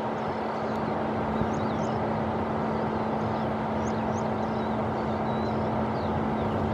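Steady jet-engine noise with a constant low hum, from the Boeing 737-800 on the ground after landing. Small birds chirp repeatedly above it.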